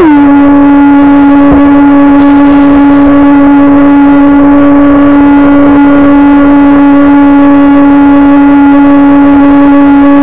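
Electric whine of a small RC jet boat's 3800 kV brushless outrunner motor driving a 20 mm jet drive. It drops in pitch right at the start as the throttle comes back, then holds one steady, loud note with a faint hiss of water beneath.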